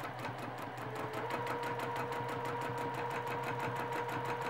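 Domestic sewing machine stitching with a free-motion quilting foot and the feed dogs dropped, running at a steady speed with a rapid, even needle rhythm while the fabric is moved by hand in straight lines. A steady motor whine joins about a second in.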